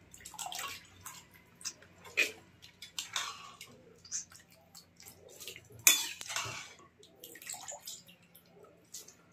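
Washed sweet corn kernels being scooped with a metal ladle out of a karahi of water and tipped into an aluminium pressure cooker: short bursts of water splashing and dripping off the ladle, with a few sharp knocks.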